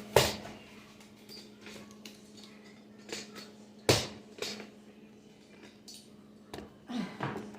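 Scattered knocks and clunks of containers and shelves being handled while a freezer is cleaned out, the sharpest about four seconds in, over a faint steady hum.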